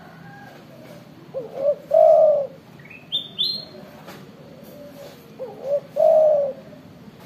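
Spotted dove (tekukur) singing its coo twice, about four seconds apart. Each phrase is two short notes followed by a longer, louder coo. Between the phrases another bird gives a few short high notes that step upward.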